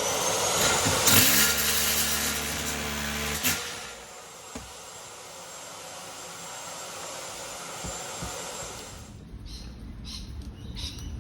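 An electric motor-driven machine running with a loud, even hiss and a faint whine that rises as it spins up. After about three and a half seconds it settles lower, and it stops abruptly about nine seconds in.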